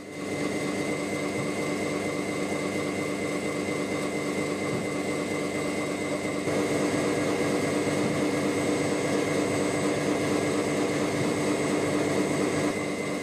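Liebherr gear hobbing machine running, its rotating hob cutting the teeth of a large helical gear: a steady mechanical whir with constant whining tones, a little louder from about halfway through.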